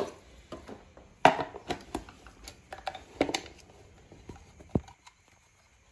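Knocks and clicks of plastic and metal tricycle parts being handled and fitted together, with light rustling between them; a few separate knocks, the loudest about a second in.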